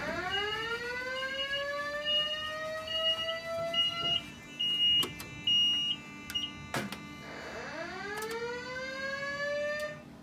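Simplex fire alarm speakers sounding a whoop tone, a pitch rising steadily over about four seconds, which starts again near the end. A high, steady beep sounds on and off alongside it, and there are a few sharp clicks.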